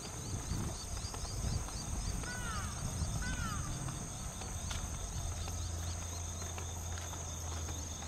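Steady high-pitched insect chorus, with two short bird chirps about two and three seconds in, over a low rumble; a low steady hum comes in about five seconds in.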